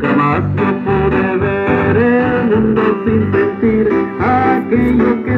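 Music with a steady, evenly pulsing bass beat and a melody over it.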